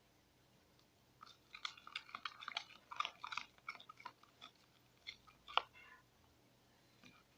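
Wet, irregular squelching and crackling clicks from a foamy detergent-and-water mixture being stirred and worked in a bowl, the froth crackling, for a few seconds in the middle.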